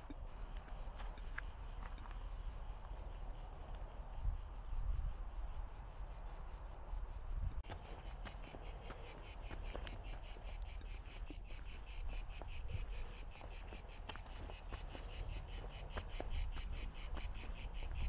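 Cicadas buzzing in a fast-pulsing chorus that grows louder about eight seconds in, over a low rumble with a few soft thumps.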